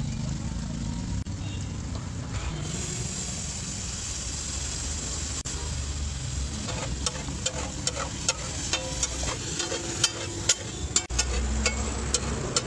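Tomato puree and spices sizzling in hot oil on a large flat griddle (tawa). In the second half a metal spatula clicks and scrapes against the griddle again and again as the mixture is stirred, with a steady low rumble underneath.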